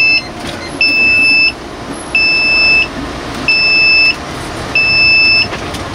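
The bus's door-open warning alarm beeping: one steady high tone, each beep lasting about two-thirds of a second and repeating about every 1.3 s, the sign that the passenger door is open. The bus's engine and road noise run underneath.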